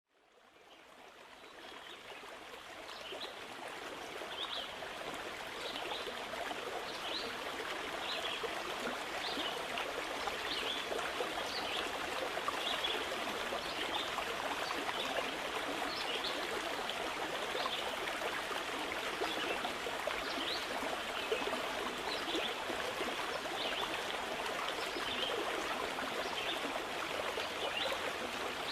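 Stream of water running steadily, with short high chirps recurring every second or so. It fades in over the first few seconds.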